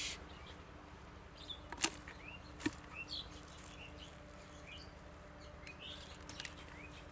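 Small birds chirping in short high calls, with two sharp clicks about two and three seconds in and a faint steady hum underneath.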